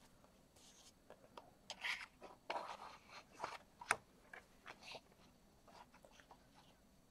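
Faint scattered clicks and short scratchy rasps of cardstock being slid into place on a paper trimmer and scored with the trimmer's scoring blade, with one sharper click about four seconds in.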